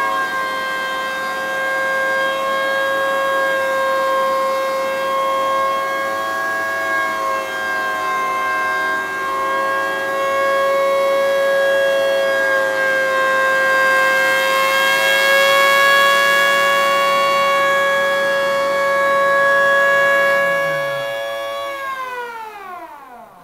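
3D-printed miniature Thunderbolt siren sounding a single steady tone through its single-tone 5-port chopper, its loudness swelling a little as the horn rotates. Near the end it winds down, the pitch sliding steeply downward as it fades out.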